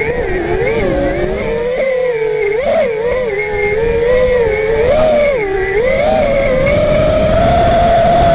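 FPV quadcopter's brushless motors and propellers whining, the pitch swinging up and down with the throttle, then settling higher and steadier near the end, heard through the quad's onboard camera.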